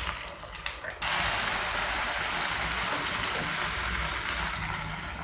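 Budha chakuli batter pancake being flipped with a spatula in a pan of hot oil. A few light spatula clicks come first, then about a second in a sudden steady sizzle starts as the uncooked side meets the oil, slowly dying down.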